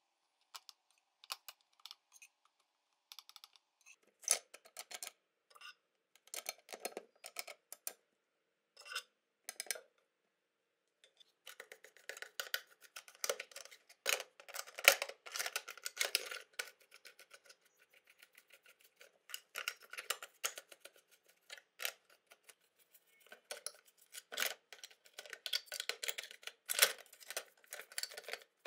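A brush and scraper working peeled paint off a model car's metal chassis parts in a plastic tub: dry scratching and clicking strokes. The strokes come in short scattered bursts at first and run almost continuously through the second half.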